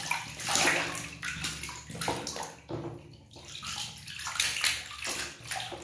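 Water sloshing and splashing in a plastic washtub as a hand scrubs a large toy figure under the surface, in irregular swishes.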